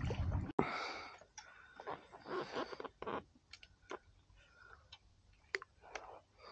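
Low wind rumble on the microphone that cuts off abruptly about half a second in, then faint scattered clicks and knocks with short soft rustles, from fishing gear handled aboard a kayak.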